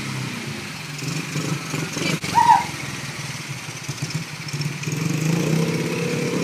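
50cc pit bike engine running at low revs, picking up again about five seconds in. There is a click about two seconds in, then a brief high squeak just after it.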